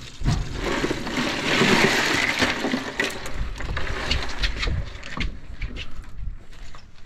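Ice and slushy meltwater shifting and rattling in a boat's fish box as kingfish are pulled out, a rushing hiss that peaks a second or two in, followed by scattered knocks and clicks of fish and ice against the box.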